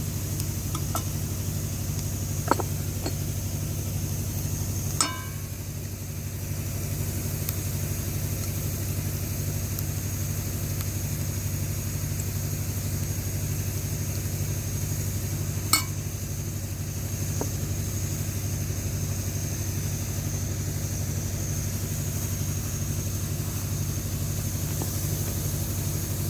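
A small engine running steadily at idle, with a low even pulsing hum, and three sharp clicks or knocks over it.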